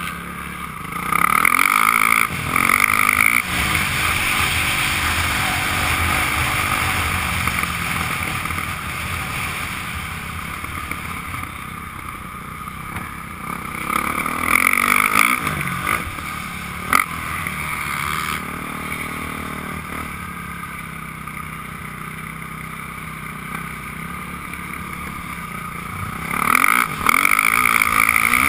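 Motocross dirt bike engine heard from the rider's helmet camera, revving up and dropping back as the throttle opens and closes, with rushing wind noise. The revs are highest briefly near the start, about halfway and near the end. A single sharp knock comes a little past halfway.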